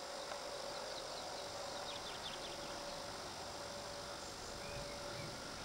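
Quiet outdoor ambience with a low steady hum, and a few faint, short high bird chirps about two seconds in and again near the end.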